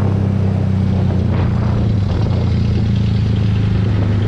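Yamaha MT-15's single-cylinder engine running at a steady cruise through an Akrapovic aftermarket exhaust with its dB killer taken out.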